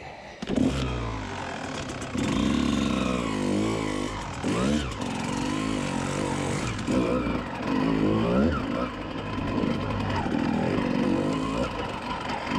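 Kawasaki KX125 dirt bike's single-cylinder two-stroke engine, revved up and down over and over as the bike is ridden slowly over big rocks.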